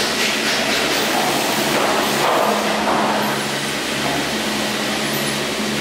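Garaventa detachable chairlift running: a steady mechanical hum over a rushing noise, with a lower tone that pulses on and off in the second half.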